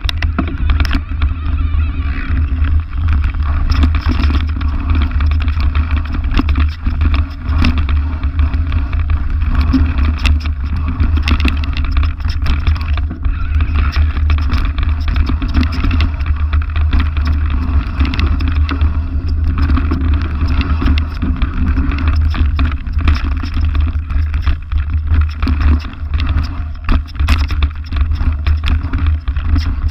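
Cube Stereo Hybrid electric full-suspension mountain bike riding fast down a dirt singletrack, picked up by a camera fixed to the bike: a heavy steady rumble of tyres and frame vibration, broken by frequent sharp clicks and rattles as it runs over roots and stones.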